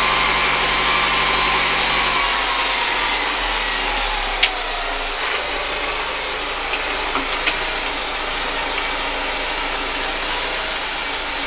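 Deutz-Fahr M410 tractor engine running steadily while driving, heard from the driver's seat, with a few short sharp knocks. The engine gets a little quieter about four seconds in.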